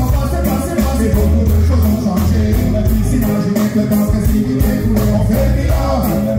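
A live band playing loud amplified music, heard from the crowd. A drum kit keeps a steady cymbal beat over a strong bass and electric guitar, while a man sings into a microphone.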